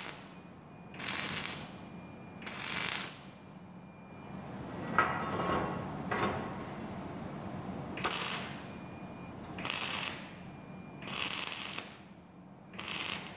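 Wire-feed (MIG) welding arc struck in about six short bursts of hissing crackle, each about half a second, laying tack welds to hold a steel angle-bar fit-up. Light metal clinks and clicks fill the pause in the middle.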